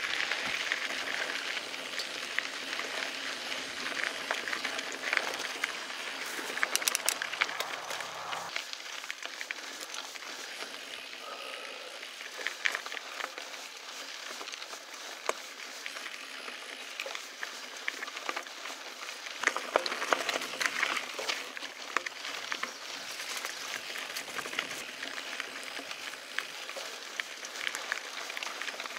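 Mountain bike rolling along a dirt and gravel singletrack: a steady crunch and hiss of the tyres on loose ground, with frequent clicks and rattles from the bike.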